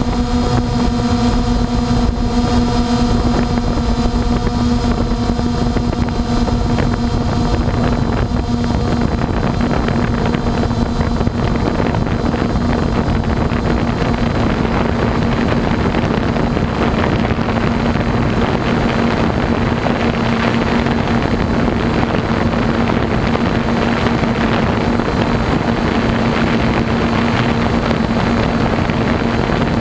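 Blade 350 QX2 quadcopter's brushless motors and propellers heard through its onboard GoPro during a steady climb: a constant motor hum with wind rushing over the microphone, the wind noise growing stronger after about ten seconds.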